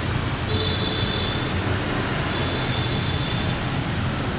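Steady street traffic noise with a brief high-pitched squeal about half a second in and a fainter high tone a couple of seconds later.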